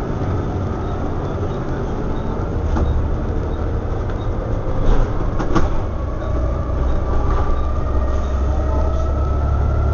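Volvo B7TL bus with a six-cylinder diesel, heard from inside the saloon on the move: a steady low engine drone, with a thin whine that rises slowly in pitch over the second half. Two sharp knocks from the body sound just past halfway.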